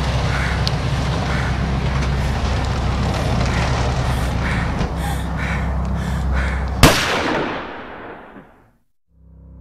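Garbage truck engine running with a steady low rumble while its lifting arm raises and tips a wheelie bin. About seven seconds in there is a single loud bang, then the sound fades away to nothing.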